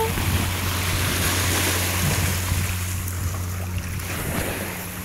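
Small waves washing and breaking over a pebble shore, with wind buffeting the microphone in a steady low rumble.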